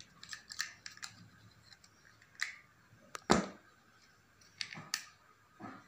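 Small plastic Transformer toy being converted by hand from robot to plane: its joints and parts click and snap as they are twisted and folded, about a dozen sharp clicks at uneven intervals, the loudest about three seconds in.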